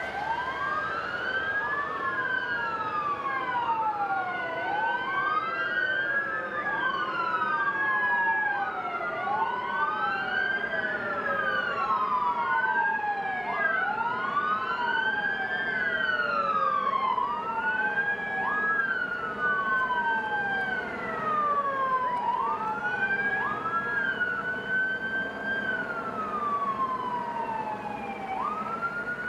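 Several emergency vehicle sirens wailing at once and out of step. Each one rises quickly and falls slowly, over and over.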